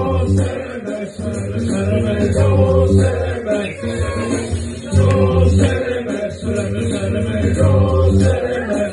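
Loud live music through a club PA: a bass-heavy beat with chanted vocals over it, the bass pulsing in and out.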